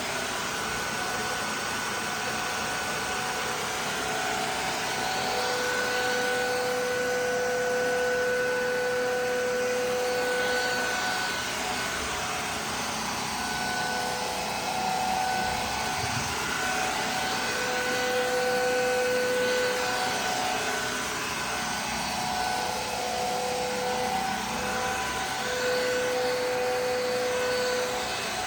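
Aspiron wet and dry vacuum mop running: a steady motor rush with a whine that fades out and returns every few seconds.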